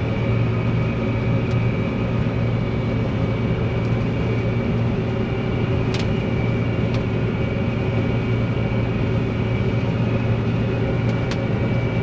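Steady drone of a John Deere combine harvesting soybeans, heard from inside the cab: a constant low engine and threshing hum with steady tones above it and a few faint clicks.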